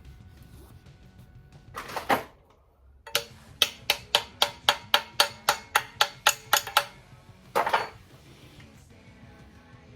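A hammer strikes metal about fifteen times, evenly at roughly four blows a second, each blow ringing. The strikes grow louder as they go, and a short rasping hiss comes just before and just after them. Faint background music plays underneath.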